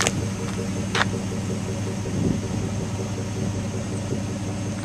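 2005 GMC Yukon's V8 engine idling, a steady low hum, with two light clicks about a second apart near the start.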